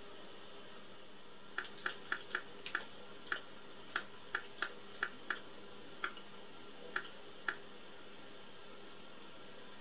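Computer keyboard keys being typed: a dozen or so sharp, irregularly spaced keystroke clicks while BASIC commands such as LIST are entered on a Hitachi MB-S1, over a steady hiss.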